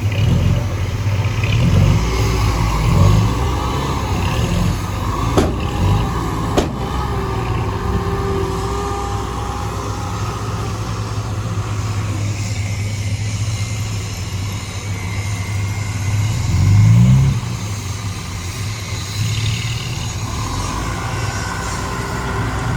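Heavy vehicle engine running steadily under load, revving up briefly near the start and again about two-thirds of the way through. Two sharp knocks or clanks come about five and six and a half seconds in.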